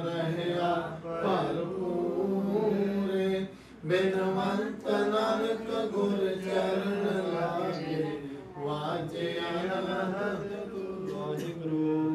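Sikh devotional chanting (Gurbani kirtan): a voice sings long, sustained melodic phrases over a steady drone, pausing briefly twice between phrases.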